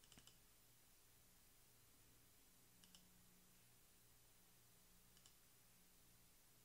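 Near silence with three faint computer mouse clicks: one just after the start, one about three seconds in, and one a little after five seconds.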